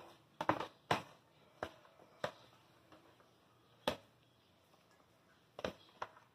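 A series of about seven short, sharp clicks and knocks at irregular intervals, spaced unevenly over several seconds.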